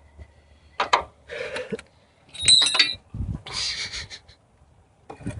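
Metal hand tools clinking and knocking together, with scrapes. About two and a half seconds in comes one loud ringing metal strike, then a dull thud.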